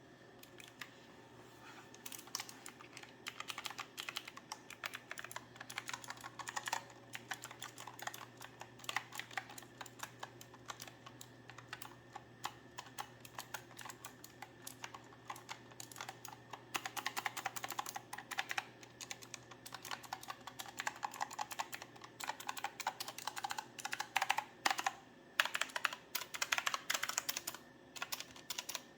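Aula Mountain S2016 mechanical keyboard being typed on: a fast, irregular clatter of key clicks that starts about a second in, with brief pauses between bursts.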